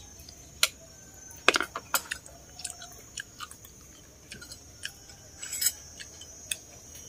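Someone chewing crunchy fried food, a scatter of irregular crisp crunches. A steady high cricket drone runs behind.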